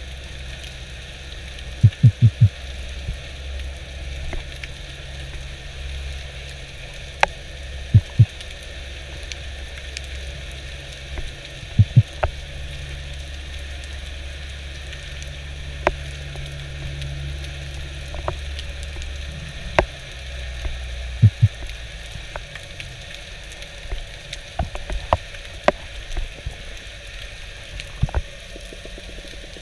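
Underwater ambience picked up through a camera housing during spearfishing: a steady low rumble with scattered sharp clicks and crackles, and a few short runs of quick low knocks, the first about two seconds in.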